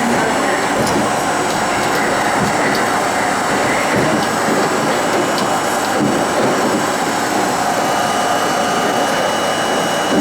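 Budd-built R32 subway car running on the rails, heard from inside the car: a steady, loud rumble and roar of wheels and motors, with a few faint clicks.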